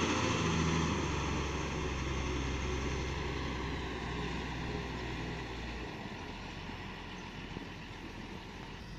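Komatsu WA300 wheel loader's diesel engine running steadily as the machine drives away, the drone fading gradually; its deepest note drops away about six seconds in.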